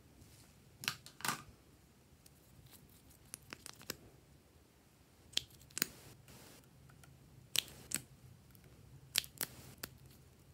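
Sharp little plastic clicks, mostly in pairs, about four times: a small plastic pen-shaped tube being handled, its cap pulled and pressed.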